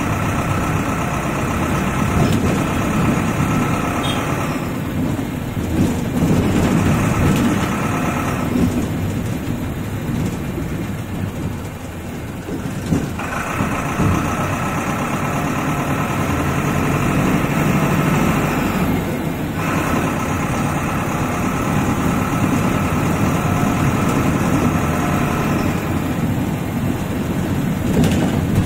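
Tata Marcopolo bus engine running as the bus drives, heard inside the cabin: a dense rumble with a steady whine over it that drops out and comes back several times.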